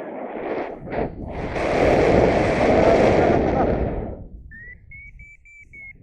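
Strong wind rushing over the microphone during a paraglider flight, swelling to a loud peak for a couple of seconds and then dying down. Near the end comes a single steady high whistle-like tone of about two seconds.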